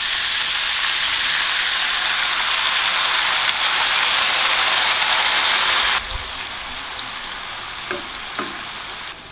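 Grated fresh tomato poured into a hot frying pan of pollock and fried vegetables, sizzling loudly in the oil; about six seconds in the sizzle drops to a quieter hiss, with a couple of light spatula scrapes near the end.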